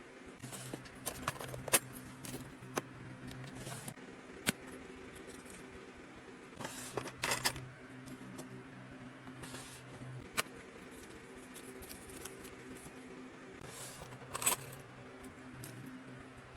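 Self-defence keychains and their metal rings and charms clinking and jangling as they are handled, with scattered sharp clicks and short rustles, over a faint steady hum.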